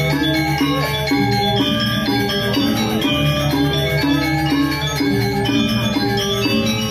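Balinese gamelan playing: metallophones ring a quick melody of short, clear notes over deep held notes that change every second or two.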